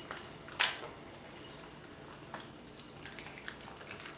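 Dogs eating soft homemade food: wet chewing and licking with small scattered clicks, and one sharp knock about half a second in.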